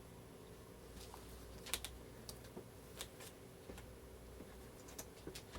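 Faint, scattered small clicks and taps of hands handling laptop parts while fitting a replacement screen panel, a few separate clicks over a quiet background.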